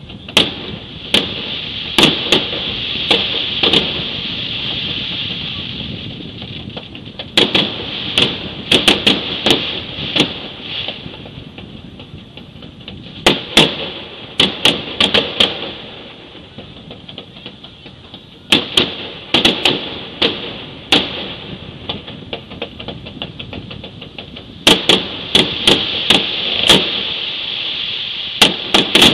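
Fireworks exploding: sharp bangs in rapid clusters of several, a new cluster about every five or six seconds, over a steady high hiss.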